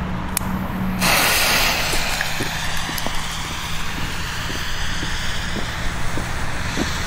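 Fuse of a BKS 1 bomb tube (a single-shot firework mortar) catching about a second in and hissing as it sprays sparks, with scattered small crackles. A low steady hum is heard before the fuse catches.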